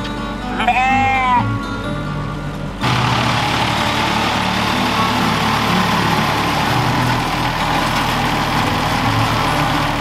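A sheep bleats once near the start over background music. From about three seconds in, a steady engine noise from a 15-horsepower mini compact tractor being driven runs under the music.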